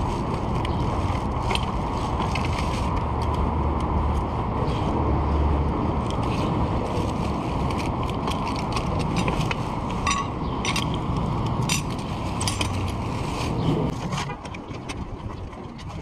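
Riding an e-bike: steady wind and road noise with frequent rattling clicks from the bike. The noise drops away about fourteen seconds in.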